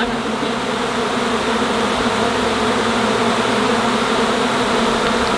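A honeybee swarm buzzing, a steady dense hum of thousands of bees in the air at once while the swarm is being shaken into a box.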